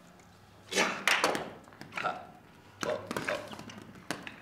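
Apples dropped from a basket onto a stage floor, hitting and bouncing in a series of uneven thuds and taps, a pair about a second in, then more around two and three seconds.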